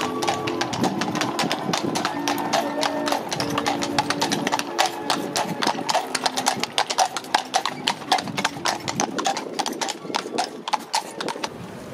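Hooves of a pair of carriage horses clip-clopping on stone paving, a quick uneven patter of strikes, loudest around the middle as the carriage passes close. Music with long held notes runs underneath.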